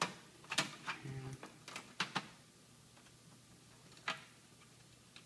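Sharp metallic clicks and taps as a screwdriver works a screw out of the TV's sheet-metal main-board shield: a quick cluster in the first couple of seconds, then one more click about four seconds in.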